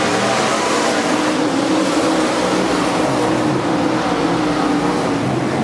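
A pack of dirt modified race cars' V8 engines running hard together around a dirt oval, a steady, loud engine noise heard from the grandstand.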